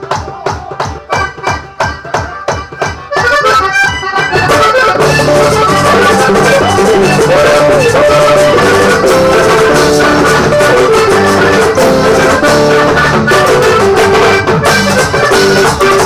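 Live Latin American band music: an acoustic guitar strums alone at about three strokes a second, then about four seconds in the full band comes in with an accordion playing a held, winding melody over the guitar.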